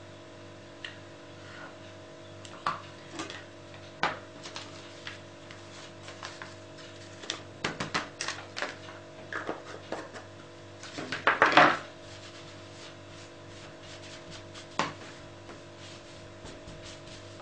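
Paper and small craft supplies being handled on a cutting mat: scattered light taps and clicks with irregular paper rustling, loudest in a brief spell of rustling and tapping about eleven seconds in, over a steady low hum.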